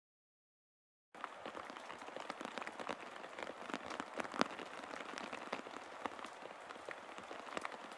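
A dense patter of many small ticks over an even hiss, setting in suddenly about a second in, with one sharper tick in the middle.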